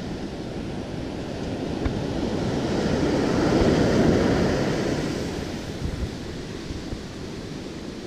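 Ocean surf breaking and washing up the beach close by, swelling to its loudest about halfway through and then easing off.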